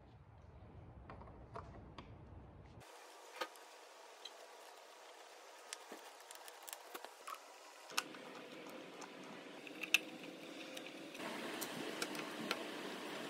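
Faint, scattered light clicks and taps of small metal cabinet hardware being handled and fitted by hand: brass hinges and their screws set back into a wooden door frame, and a round knob put on the door.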